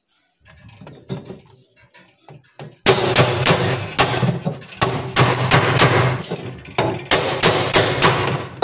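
A hammer beats on a metal pipe held against a refrigerator's plastic freezer liner, a rapid string of loud blows about three a second with a hollow, boomy ring, starting about three seconds in after a few faint knocks. The liner is being beaten back to make room for the new evaporator coil.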